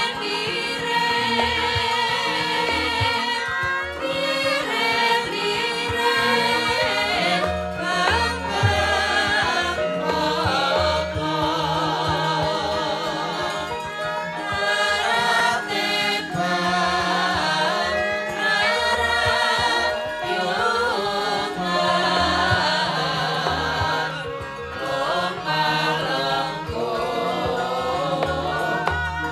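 Several Javanese sindhen (female singers) singing together in wavering, ornamented lines, over gamelan accompaniment with low sustained tones that change in steps.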